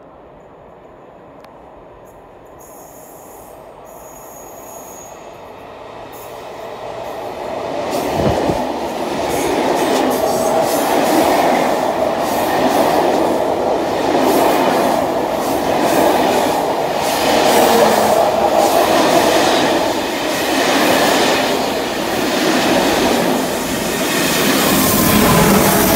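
SNCB passenger train passing close by. The sound builds over the first several seconds and then becomes a loud, steady rumble of the coaches' wheels on the rails, with a rhythmic clatter of the bogies over the rail joints.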